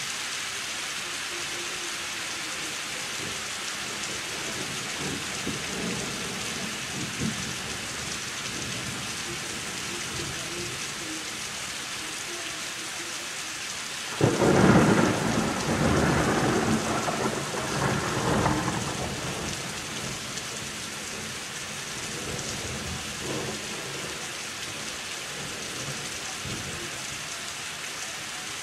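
Steady rain during a thunderstorm. About halfway through, a sudden loud crack of thunder breaks in and rumbles on for about five seconds before fading back under the rain.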